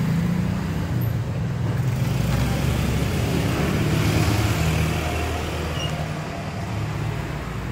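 Road traffic: a motor vehicle engine running steadily close by, with traffic noise that swells about four seconds in.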